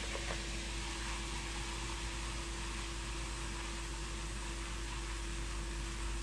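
Steady fizzing hiss of baking soda, citric acid and coarse salt reacting and dissolving in hot water in a small metal pot, with a steady low hum underneath.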